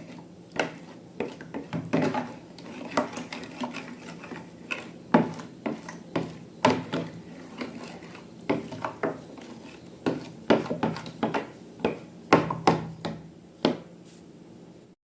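Slime being mixed in a container: irregular sharp clicks, taps and scrapes of a utensil against a dish, over a faint steady hum. It cuts off abruptly near the end.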